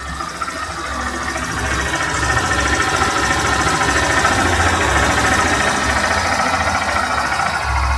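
Honda CG Titan 160 single-cylinder engine running, getting louder over the first couple of seconds and then holding steady. Under it is a faint beep the owner hears in the background, which he has been told may be a failing fuel pump.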